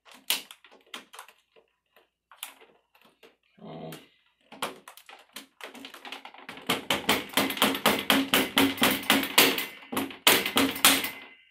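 Vinyl glazing bead being tapped and snapped into the channel of a Silverline vinyl window frame: scattered clicks and knocks, then a fast run of taps, about six a second, over the last few seconds with a short break near the end.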